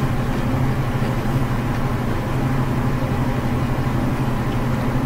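Steady low machine hum, even and unchanging throughout.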